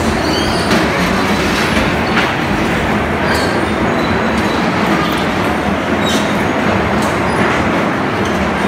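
Electric bumper cars running on a dodgem floor: a steady loud rumbling noise, with scattered sharp clacks and a few short high squeaks.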